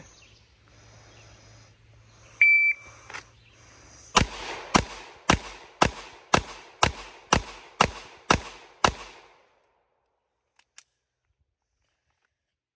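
A shot timer gives one short, high start beep. About two seconds later a 4-inch Walther PDP pistol fires ten shots in quick succession, roughly half a second apart, the string ending about 6.4 seconds after the beep.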